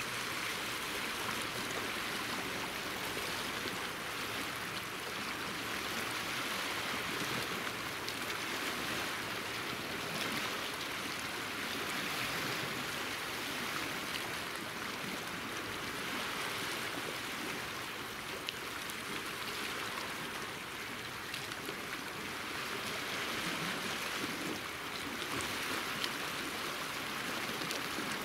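Small sea waves washing and lapping over shoreline rocks: a steady rushing wash that swells and eases slightly.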